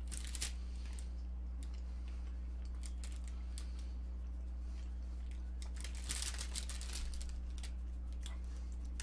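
Scattered soft crinkles and clicks of a snack wrapper being handled, with a small cluster about six seconds in, over a steady low electrical hum.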